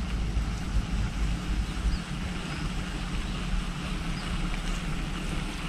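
Wind on the microphone: a steady low rumble with a light hiss and no distinct events.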